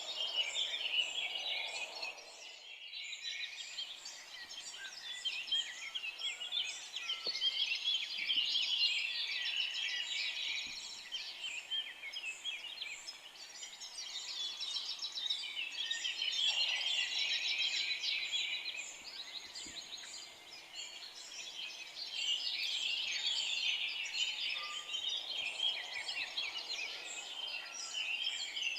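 Dense chorus of many forest songbirds chirping and trilling at once, swelling and easing several times.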